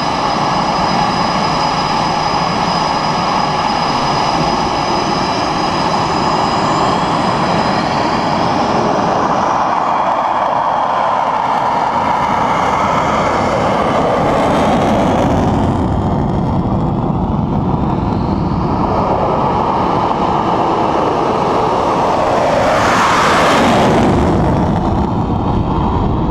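F/A-18E/F Super Hornet's twin jet engines running loud and steady, with a high whine over the rush of noise, as the jet moves along the runway; the noise swells a few seconds before the end.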